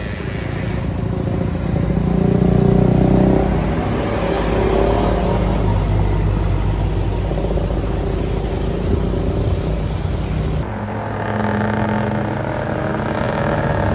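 Bus diesel engine and road noise of heavy traffic passing, swelling louder about two to three seconds in. About ten and a half seconds in the sound changes abruptly to a steadier engine drone.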